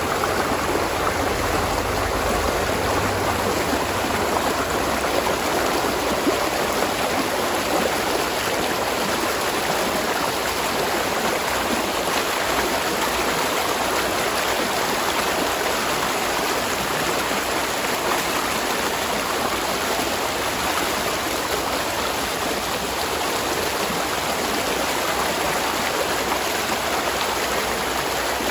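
Spring-fed stream of water running and splashing steadily, a continuous rushing with no breaks.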